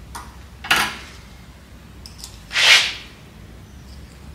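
Snap ring on a Bobcat variable speed drive's shaft snapping into its groove as it is fitted with snap ring pliers: two short sharp snaps, the louder about two and a half seconds in.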